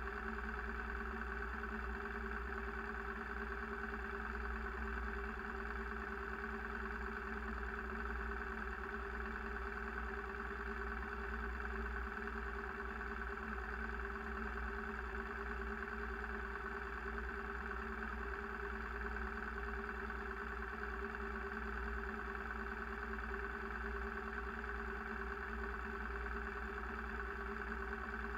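A vehicle's engine running steadily: an unchanging hum with a deep rumble underneath, heard from on board.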